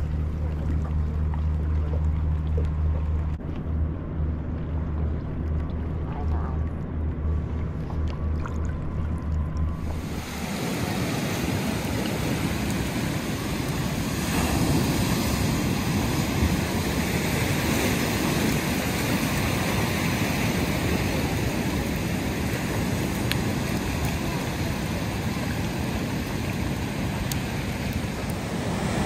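For the first ten seconds or so, a low steady hum over faint lapping water as a kayak is paddled. Then, after a sudden change, surf breaking and washing up a black-sand beach, with wind rushing over the microphone.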